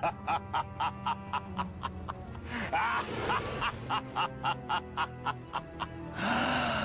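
Short music clip with a steady beat of about four hits a second, with squawking, sliding sounds a little under three seconds in. A burst of noise comes near the end.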